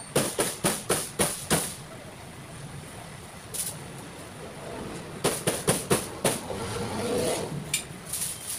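Cleaver chopping roast chicken on a wooden chopping board: two quick runs of strikes, about four a second, one at the start and another about five seconds in, with a single chop between them.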